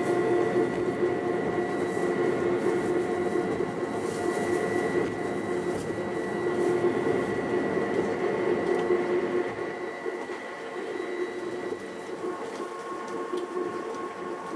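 Uijeongbu Light Rail's rubber-tyred VAL train running along its guideway, heard from inside the car: a steady running hum with several held whining tones. About ten seconds in it drops in level and loses some of its low end.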